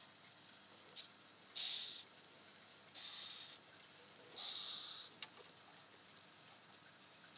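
Madagascar hissing cockroach hissing: a brief puff about a second in, then three separate hisses of about half a second each, air forced out through its breathing pores. It is the disturbance hiss given as it is touched by a hand.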